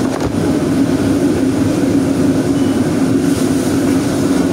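Commercial gas wok burner running at full flame: a steady, loud rushing noise with no let-up.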